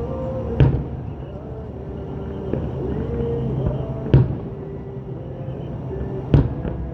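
Aerial fireworks shells bursting: three sharp booms, about a second in, past the middle and near the end.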